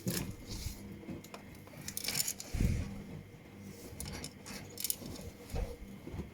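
Washing machine with a load of laundry: irregular light clinks and rustles, a dull thud a little past halfway, and a steady low hum underneath.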